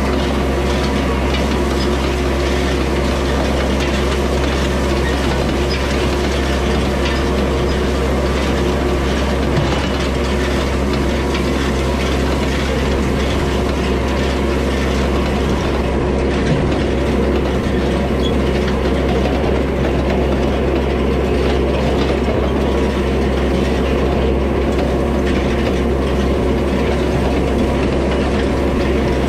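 A Yanmar tractor's engine running at a steady pace while towing an old side-delivery hay rake, whose reel, tines and gearing rattle and clatter continuously as it rakes cut hay into a windrow.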